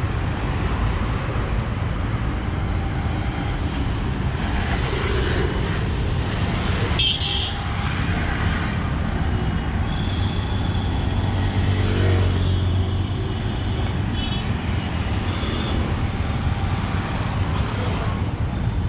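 Road traffic on a multi-lane city road: a steady wash of car engine and tyre noise with a low rumble. A vehicle passes close about ten to thirteen seconds in, and a few short high tones come through.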